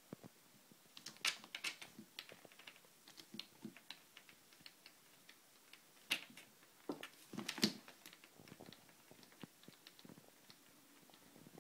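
Kittens' claws and paws clicking, catching and tapping on a mesh sweater drying rack and its plastic frame as they play. Quiet, irregular clicks, with louder flurries about a second in and again around six and seven and a half seconds in.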